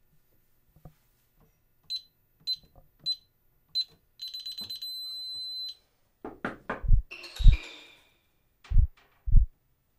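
Alarm keypad beeping four times as the code 7777 is keyed in, then a quick run of beeps lasting about a second and a half. After that come several heavy low thuds, some in pairs, which are the loudest part.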